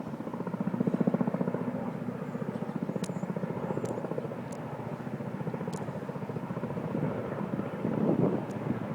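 Helicopter flying low overhead, its rotor beating in a rapid, even thumping that swells about a second in and again near the end.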